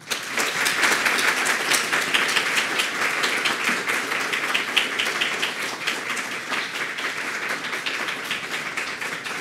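An audience applauding, starting all at once and easing off slightly toward the end.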